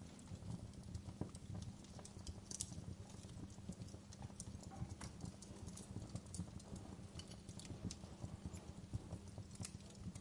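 A fire crackling: irregular small pops and clicks over a steady low rumble.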